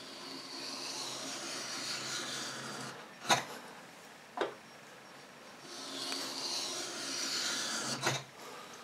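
Lie-Nielsen No. 66 beading tool scraping along a small wooden strip in two strokes with a rasping hiss, with a few sharp clicks between them. The blade is set shallow, so it only scratches the surface to start the bead.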